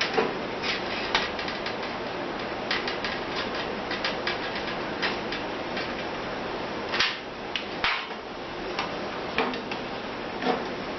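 Scattered light metallic clicks and knocks as screws and a thin sheet-metal shroud piece are handled and fastened to an engine backing plate, over a steady background noise.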